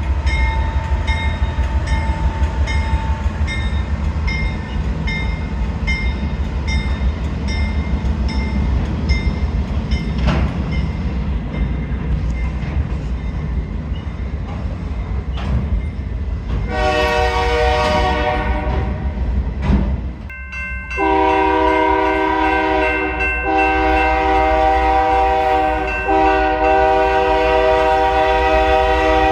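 Heavy diesel freight train rumbling with a grade-crossing bell ringing steadily about twice a second. Then the GE road locomotive's multi-chime air horn sounds one blast of about three seconds, followed after a short gap by a long, loud blast that carries on with brief breaks.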